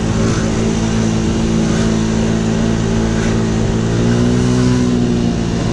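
Scooter engine running steadily while riding at low speed. Its pitch rises slightly and eases back about four seconds in.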